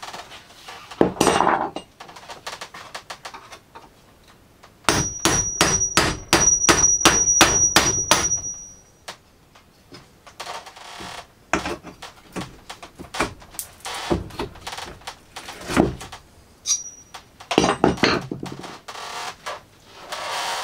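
Claw hammer knocking apart a wooden pallet: a rapid run of about a dozen ringing blows a few seconds in, then scattered single knocks.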